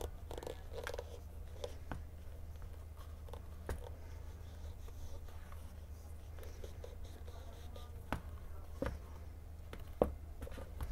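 Hands handling a leather high-heeled shoe on a wooden workbench: soft rubbing and a few light taps and knocks. The sharpest knock comes near the end as the shoe is set down on its heel. A low steady hum runs underneath.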